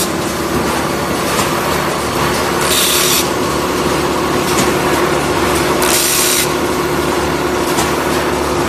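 Automatic mesh-sack cutting and sewing machine running: a steady mechanical hum and rattle, with a short hiss about every three seconds.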